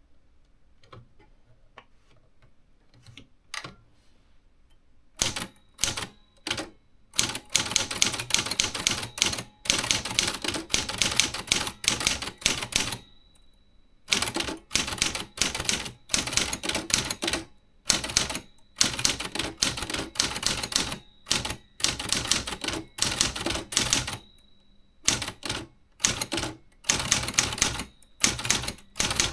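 Remington Quiet-Riter manual portable typewriter being typed on: a few light clicks, then from about five seconds in fast runs of typebar strikes, pausing briefly twice, around the middle and near the end.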